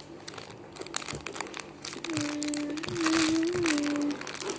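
Crinkling of a squishy toy's plastic packaging being handled. About halfway through, a voice hums a low held note for about two seconds.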